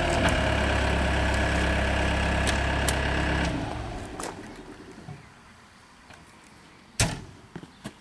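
Gehl skid steer loader's engine idling steadily, then shut off about three and a half seconds in and running down to quiet. About seven seconds in there is one sharp knock, followed by two smaller clicks.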